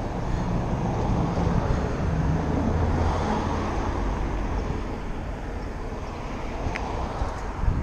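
Wind rushing over the microphone of a handlebar-mounted camera on a moving bicycle, mixed with street traffic, a car's engine loudest in the first few seconds. A single short click comes near the end.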